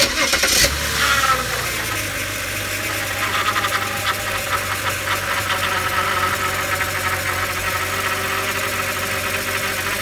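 BMW E92 328i's inline-six engine fires up and idles, with a steady high-pitched whine from the power steering pump running over it. The fluid has just been flushed, and the whine persists until the fresh fluid has worked its way through the system.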